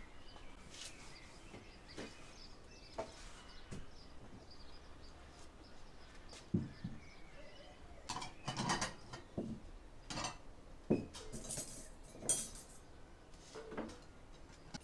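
Ceramic plates and metal forks being set down on a cloth-covered table: scattered soft knocks and clinks, most of them in the second half.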